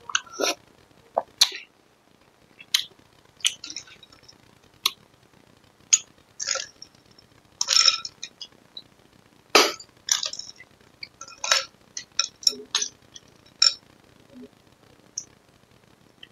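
A metal spoon clinks and scrapes against glass bowls as green lod strands in syrup are eaten and ladled from a large bowl into a small one. Short, irregular clinks are mixed with a few wet slurps from eating.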